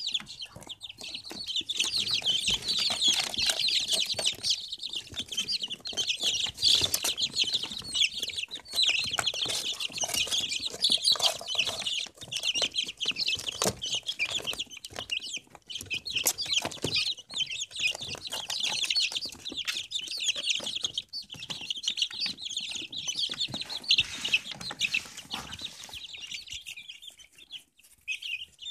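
A brood of young chickens peeping continuously, many short high-pitched cheeps overlapping, thinning out briefly near the end.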